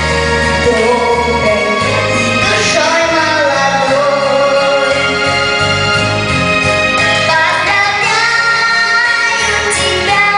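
Female voice singing a song over instrumental backing with a bass line that steps from note to note.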